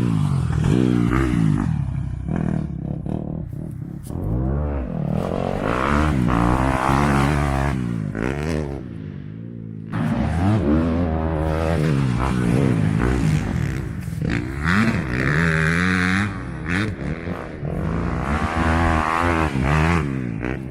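Dirt bike engine revving up and down over and over as it is ridden, its pitch climbing through each gear and dropping back as the rider shifts or shuts off. There is an abrupt break about ten seconds in, after which the same pattern resumes.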